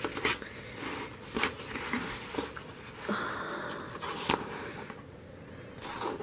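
Paper rustles and light clicks from a photobook being handled and held open, with a sharper tap a little after four seconds in.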